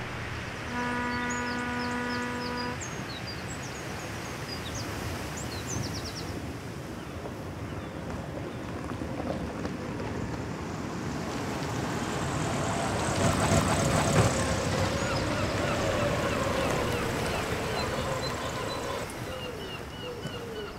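Waterside ambience with small birds chirping in the first few seconds, after a brief low held horn-like tone near the start. A car drives past, loudest about two-thirds of the way through.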